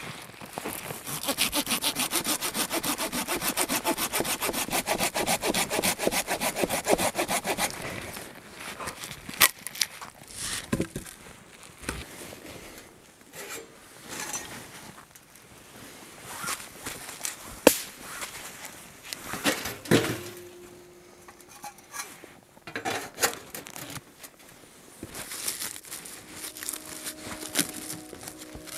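Hand saw cutting through wood in fast, even strokes for about seven seconds, then stopping. Scattered knocks and clatter of wood being handled follow.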